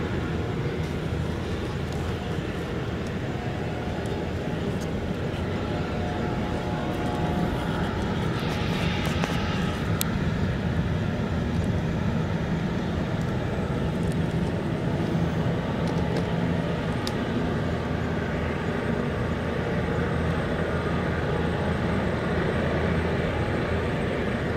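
Distant jet airliner engines running at taxi power: a steady low rumble with a faint whine. A brief hiss rises and fades about eight to ten seconds in.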